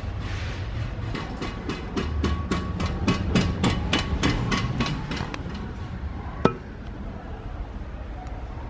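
A rapid series of sharp knocks like hammer strikes, quickening to about four or five a second, then stopping; a single sharp knock follows about a second later.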